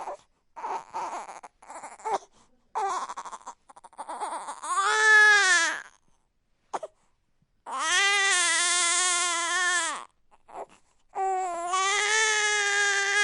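Newborn baby crying: short broken sobs and catching breaths, then three long drawn-out wails with pauses for breath between them.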